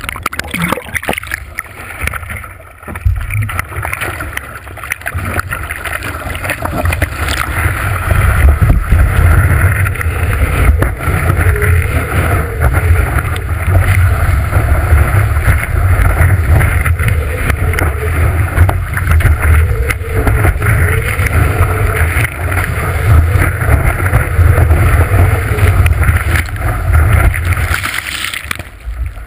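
Water rushing and splashing against a surfboard-mounted action camera, with wind buffeting the microphone as the board paddles into and rides a breaking wave. The low rumble builds about three seconds in and falls away near the end.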